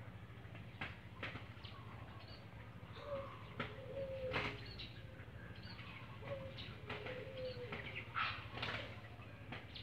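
Two doves fighting on the ground, striking each other with their wings: sharp wing slaps come every second or so, with short low calls in between.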